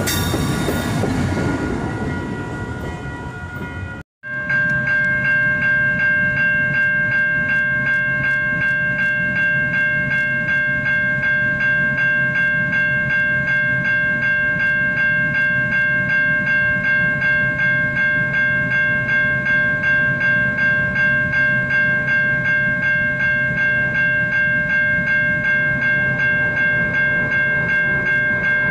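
A passenger train runs past, its noise fading over the first four seconds. After a sudden cut, a railroad grade-crossing warning bell rings with rapid, evenly spaced strokes over a steady ringing tone.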